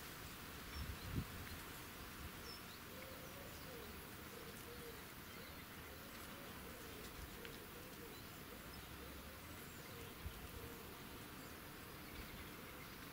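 A flying insect buzzing close by, its drone wavering up and down in pitch as it moves about, starting a few seconds in and fading after about seven seconds. A couple of low thumps come about a second in, over a steady outdoor hiss.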